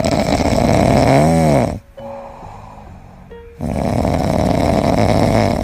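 A French bulldog puppy snoring in its sleep: two long, loud snores about two seconds apart. The first ends in a pitched tone that rises and falls.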